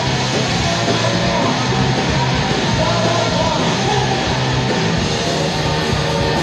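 A rock band playing live on electric guitars through amplifiers, loud and steady.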